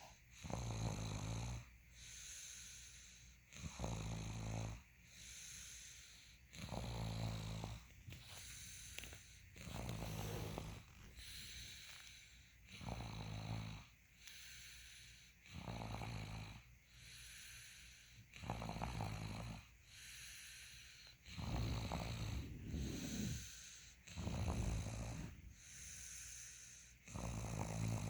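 A person snoring: about ten loud, low-pitched snores, roughly one every three seconds, with a softer breathy sound between each.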